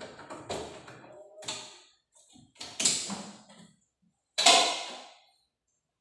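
Knocks and clatter of parts and tools being handled inside an open refrigerator compartment. It is a string of separate knocks, the loudest a sharp clack about four and a half seconds in that fades over about a second.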